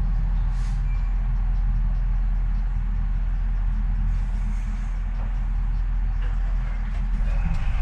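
Docklands Light Railway train running, heard from inside the carriage: a steady low rumble of wheels and traction motors on the track, with a faint high tone coming in near the end.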